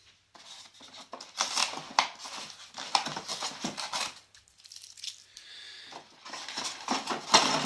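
Packaging rustling and crinkling with sharp clicks, in irregular bursts, as parts are lifted out of a drone's box; a quieter stretch in the middle, loudest near the end.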